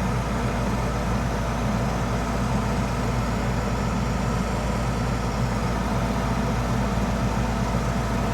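Old gas furnace running with its burners lit: a steady mechanical hum with a low drone.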